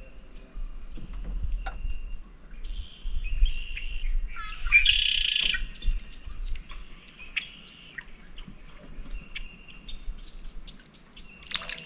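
Wild birds calling: scattered short chirps and whistles, with one louder, harsh call about five seconds in lasting under a second. Right at the end, water starts splashing as a hooked fish breaks the surface.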